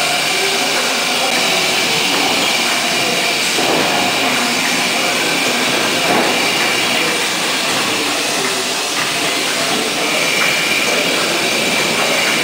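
Bottling line machinery running: a bottle conveyor and rotary labelling machine make a steady mechanical clatter with a constant high-pitched whine.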